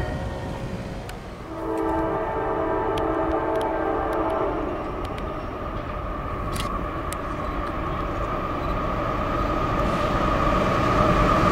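An approaching CSX freight train's diesel locomotive sounds its multi-chime air horn for about three seconds, starting a little over a second in. After the horn, the locomotives run toward the listener, with a steady high tone and a rumble growing louder.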